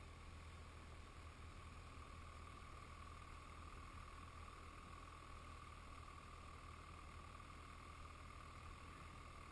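Near silence: a faint, steady hiss with a low hum underneath.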